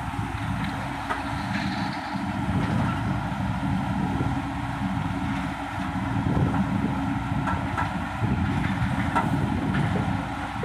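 Diesel engines of a Sonalika DI 750 III tractor and an XCMG XE80C excavator running together: a steady low rumble that swells and eases a little.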